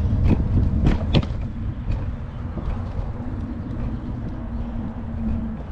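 Wind rumble on the microphone and rolling noise while riding an e-bike, with a few sharp clicks and rattles in the first second or so. A steady low hum stops about five seconds in.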